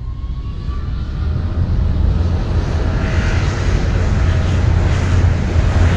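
Aircraft engine noise at an airport: a steady roar over a deep rumble that swells in over the first couple of seconds, with a faint whine rising in pitch near the start.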